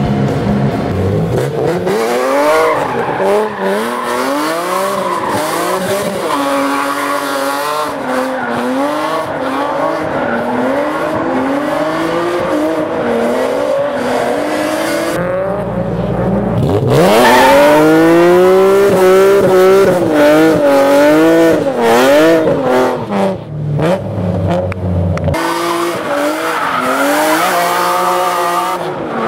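BMW E46 M3's inline-six, uncorked by headers, no catalytic converters and a Gruppe M exhaust, revving up and down over and over while drifting, with tyre squeal from the spinning rear wheels. There is one long climb in revs about halfway through.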